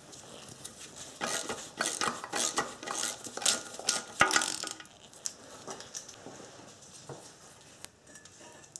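Socket ratchet clicking in quick runs as it turns manifold nuts loose on an engine. After about four and a half seconds it turns quieter, with only a few light metal clinks.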